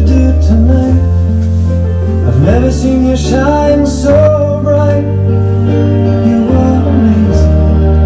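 Background music: a song with a sung melody over long held bass notes.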